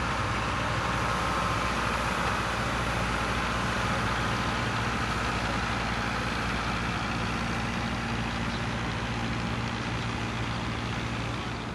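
Engine of a Sperry hi-rail truck running steadily as it rolls along the rails, a low hum that slowly fades as the truck moves away.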